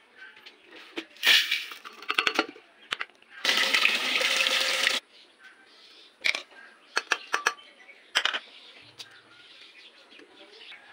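Kitchen handling sounds: clusters of sharp clicks and knocks of spoons and containers against an aluminium pressure cooker pot, with about a second and a half of rushing, pouring water near the middle.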